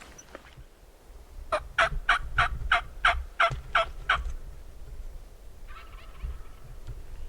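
A turkey call worked close by in a series of about ten hen yelps, loud and evenly spaced at a little over three notes a second, meant to pull in a Merriam's tom.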